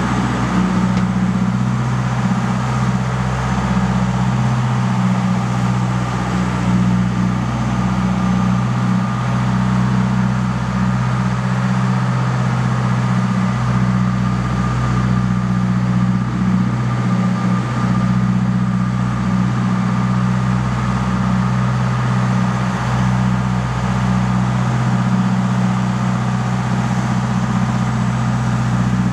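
Sport-fishing boat's inboard engine running steadily at trolling speed: a constant low drone.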